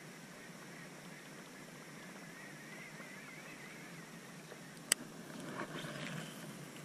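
Baitcasting rod and reel during a cast and retrieve, heard faintly over a steady hiss. A sharp click about five seconds in, as the reel is engaged, is followed by a second of handling and cranking noise.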